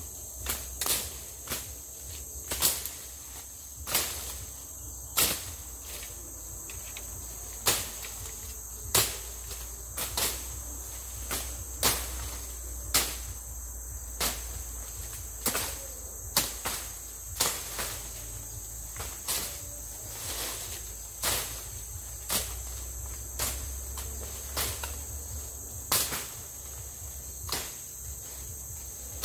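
Machete blows chopping through forest undergrowth, sharp strikes about once a second at an uneven pace. Insects drone steadily and high-pitched underneath.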